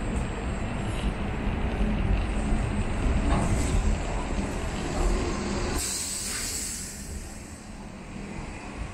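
City street traffic: buses and a truck running past, with a steady low rumble. About six seconds in, a heavy vehicle's air brakes let out a short, sharp hiss.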